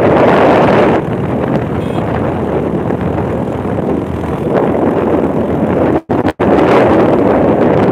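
Wind rushing over the microphone of a motorcycle riding at speed, mixed with the bike's engine and road noise. The sound cuts out twice, briefly, about six seconds in.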